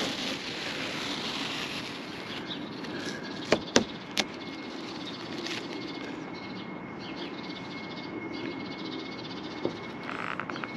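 Masking tape being peeled off a caravan's acrylic sunroof after sealing a crack with silicone, then crumpled into a paper towel. A few sharp clicks come about three and a half to four seconds in.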